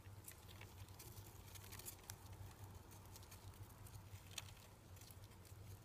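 Near silence: a faint steady low hum, with scattered soft clicks and rustles from hamster pups stirring in their nest.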